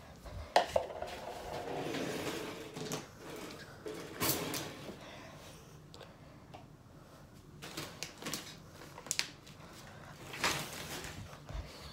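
Kitchen items being handled and rummaged through: scattered clinks, clacks and knocks of dishes and utensils set down and moved, with a stretch of rustling in the first few seconds.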